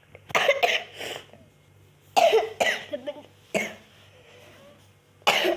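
A person coughing in short bouts: a quick double cough near the start, three more coughs between about two and three and a half seconds in, and another cough near the end.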